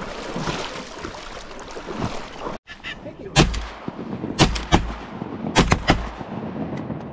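Shotgun blasts in a quick volley: about six sharp shots over roughly three seconds.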